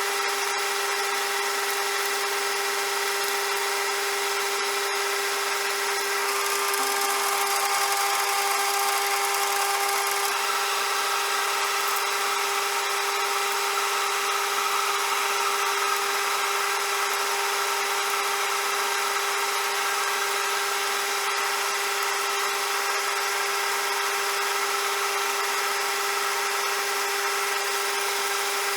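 CJM360 bench lathe running at steady speed: a constant whine over a hiss. From about six seconds in, a higher tone and brighter hiss join for about four seconds, then drop away.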